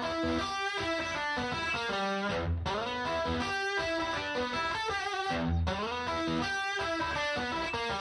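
Background music led by guitar.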